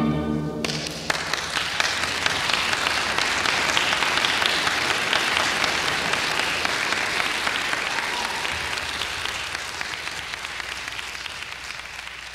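A chamber orchestra's final chord cuts off within the first second, then an audience applauds, the clapping slowly dying away toward the end.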